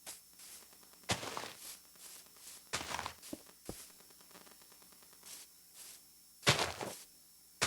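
A series of irregular knocks and thuds with short rustling sounds, the loudest a close pair about six and a half seconds in.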